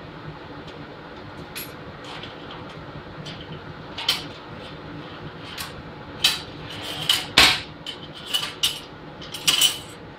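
Several sharp metallic knocks and clinks from metal parts and tools being handled, most of them in the second half, over a steady low hum.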